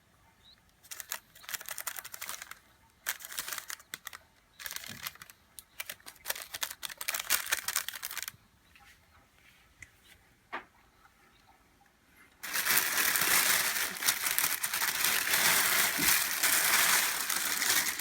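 Dry scratching and crinkling noise in several short bursts, a lull with one click, then a louder unbroken stretch of the same scratching for the last five seconds or so.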